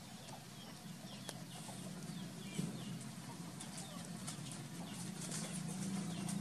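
Animal calls: many short, high chirps, each falling in pitch. Beneath them is a low steady sound that grows louder near the end.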